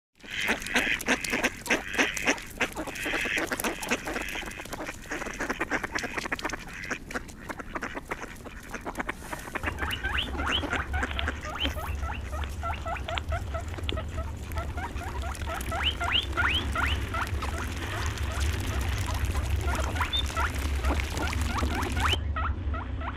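Mallard ducks quacking on the water. About ten seconds in, the sound changes to a steady low rumble with many short, rising chirps repeating over it.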